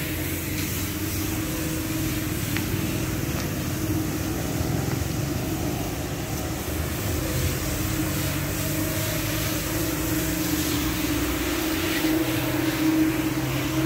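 Single-disc rotary floor scrubber running steadily on a wet tile floor, its electric motor giving a constant hum.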